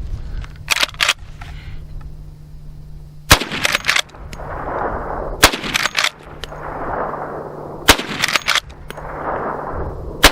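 Marlin lever-action rifle firing: four loud shots about two and a half seconds apart, each followed by a quick run of smaller cracks, with a few smaller cracks about a second in.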